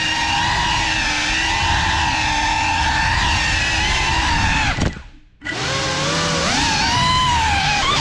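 GEPRC FPV quadcopter's brushless motors whining steadily as it flies. About five seconds in the pitch falls as the motors wind down, there is half a second of near silence, and then the whine spins back up, its pitch gliding up and down with the throttle.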